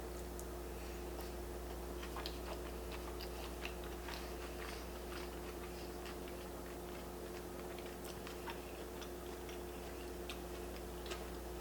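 A person quietly chewing a mouthful of cauliflower-rice sushi: soft, scattered clicks of chewing over a steady low hum.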